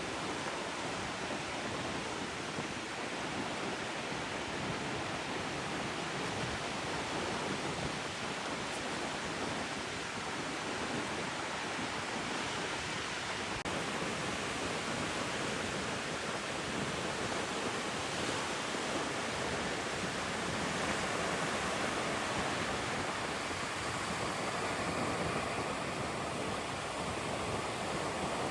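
Steady rushing noise of ocean surf, even throughout and swelling slightly after about twenty seconds.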